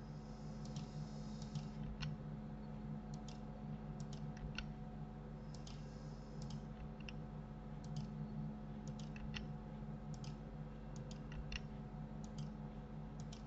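Irregular clicks of a computer mouse and keyboard, single and in short clusters, over a steady low hum.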